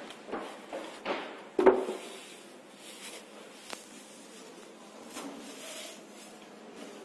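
Unpacking noises: a polystyrene foam packing cap and plastic-bagged light fixture being handled, with several knocks, the loudest about a second and a half in, then plastic wrapping rustling near the end.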